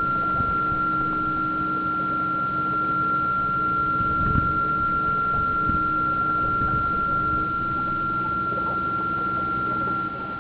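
Steady high-pitched electrical whine with a lower hum beneath it, from the electric model tug's drive heard through its onboard minicam.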